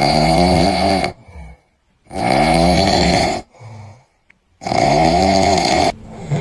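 A man snoring loudly in his sleep: three long snores, about two seconds apart.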